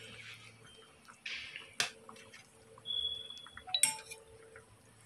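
Stainless steel spoon ladling coconut-milk stew out of an aluminium pot, with a soft slosh of liquid and two sharp clinks of metal on the cookware about two seconds apart. A brief high ring comes between the clinks.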